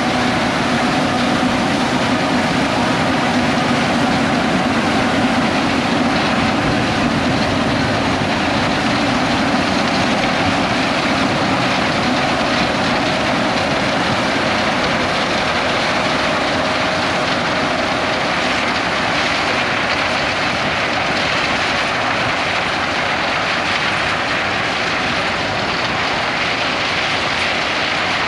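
John Deere X9 1100 combine harvesting corn with its 16-row corn head, engine and threshing machinery running at a steady load.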